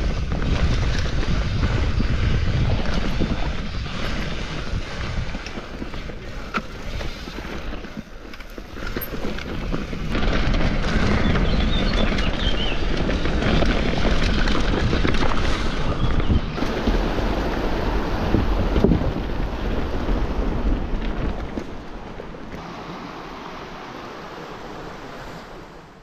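Wind buffeting the microphone over the rumble of a mountain bike rolling down a rough dirt trail, easing off over the last few seconds.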